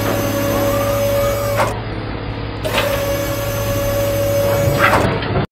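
Whirring motor sound of a toy dump truck raising its tipper bed to dump sand, in two runs of about two seconds each over a steady hum. It cuts off suddenly near the end.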